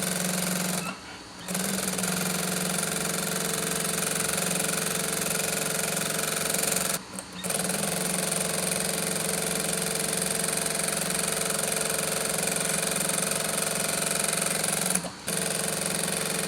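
Jack A4 single-needle industrial lockstitch sewing machine running at steady high speed, with short stops about a second in, around seven seconds, and near the end.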